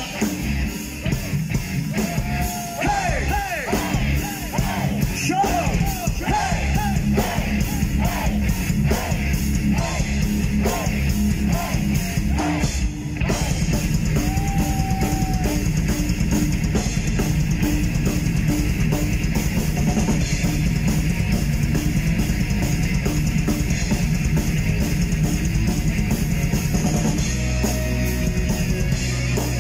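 Live heavy metal band: high sung vocal lines over distorted electric guitars, bass and drums. About halfway through, the singing stops and the band plays on as an instrumental passage with a fast, steady beat.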